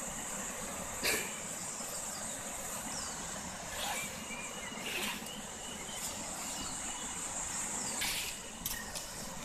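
Steady high-pitched drone of insects over the even rush of a river, with a few short rustles or knocks about one, four, five and eight seconds in.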